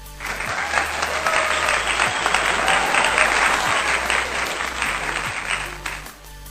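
Applause, a dense patter of clapping that starts suddenly and cuts off suddenly about six seconds in, over faint background music.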